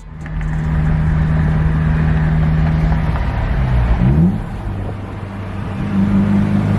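Nissan D21 Hardbody pickup's engine running through its newly welded exhaust: a steady drone whose pitch swoops briefly about four seconds in, dips in level, then settles a little higher near the end.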